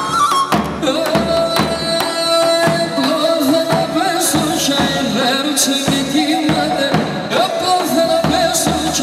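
Live Pontic Greek folk dance music: a large double-headed davul bass drum struck in a steady beat, with a wavering melody line over it from the band.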